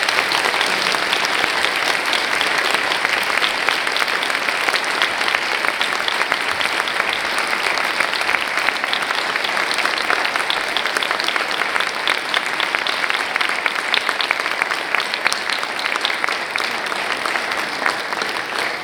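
A large audience applauding: sustained, dense clapping that eases off slightly near the end.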